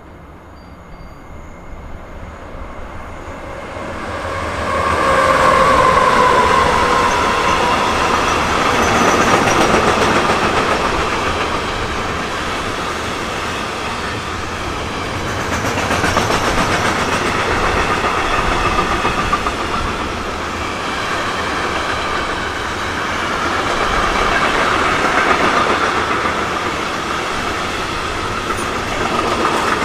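Container freight train passing close by. It grows louder over the first five seconds as it approaches, then the wagons roll past with a steady rumble and clatter of wheels on the rails, swelling and easing every few seconds.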